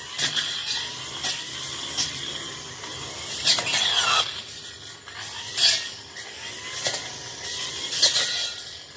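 Tanzu brush cutter running, its engine pitch rising and falling with the throttle, while the spinning blade slashes through brush in repeated sharp swishes about every second.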